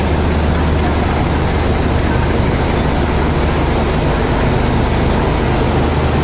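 Diesel shunter locomotive and its train of coaches rolling slowly past: a steady low diesel drone with the rumble of wheels on rails. A thin, steady high-pitched whine fades out near the end.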